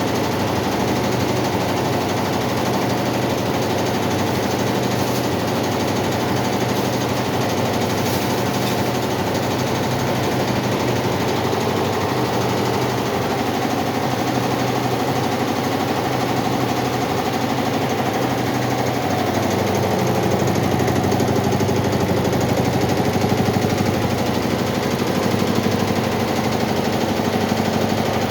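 Four-head computerized embroidery machine running and stitching, a fast, steady rattle of needle strokes.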